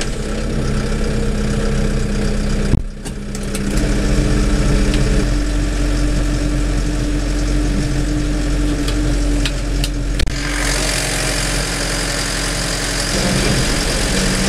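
Fendt 209 V tractor's diesel engine running steadily under load, heard from inside the cab while it drives a vineyard mulcher; the mulcher itself is barely heard. The sound dips briefly about three seconds in, and a broader hiss joins from about ten seconds in.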